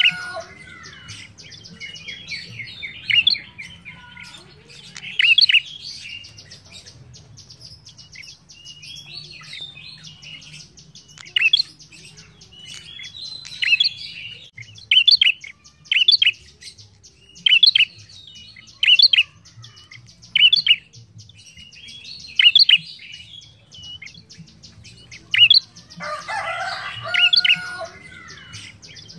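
Prenjak (prinia) singing: loud, short, sharp chirping phrases repeated every second or two with some gaps, and a burst of harsher, denser chatter near the end.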